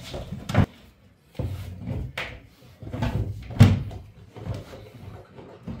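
Red plastic body panels of a Çilek car bed being handled and pushed together, with rubbing and a few hollow knocks; a sharp knock comes just after the start and the loudest one a little past halfway.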